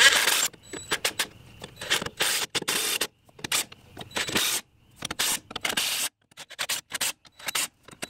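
Craftsman cordless impact wrench run in many short bursts, spinning tapered lug nuts onto a tractor wheel's studs and snugging them, with brief gaps as the socket is moved from nut to nut.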